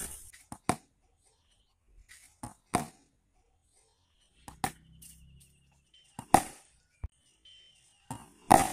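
Cricket bat swung hard through the air in repeated practice helicopter-shot swings, a sharp swish about every two seconds.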